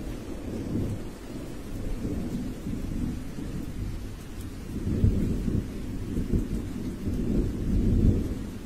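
Low, rolling rumble without speech or music, swelling about five seconds in and again near the end.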